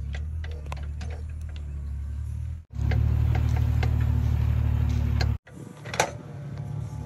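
Hitachi 20U mini excavator's engine running steadily as it digs, with scattered light clicks and knocks from the working arm and bucket and one sharp knock about six seconds in. The sound breaks off abruptly twice.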